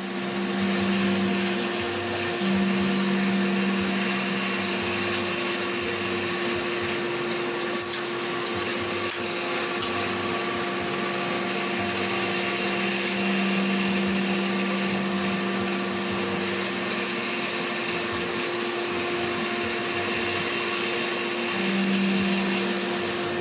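CNC milling machine running a cut with coolant spraying from the coolant ring. A steady motor whine sits over a constant hiss, and a lower hum cuts out and returns a few times.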